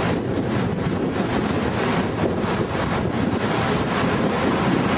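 Steady outdoor street ambience: an even noisy rush with wind buffeting the microphone.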